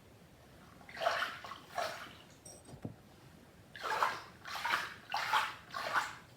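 Water sloshing and splashing as a soaking plush toy is worked by hand in a basin of soapy wash water, in six short swishes: two early and four in quick succession near the end.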